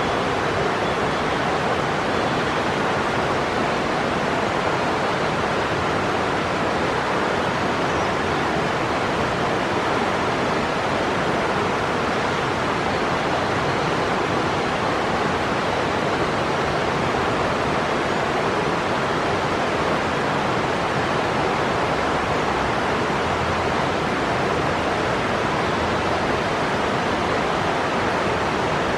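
Steady, even rushing noise with no rhythm or breaks, like running water or a hiss, with a few faint short high peeps in the first second or so.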